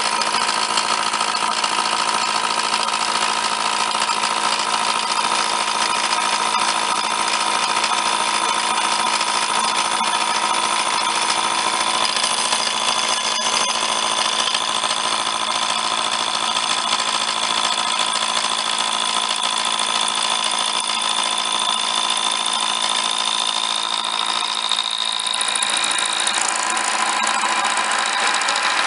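Milling machine running steadily while milling ice-auger blades, a dense whine with steady high-pitched tones over it. The highest tone creeps slightly upward and stops near the end, where the sound changes.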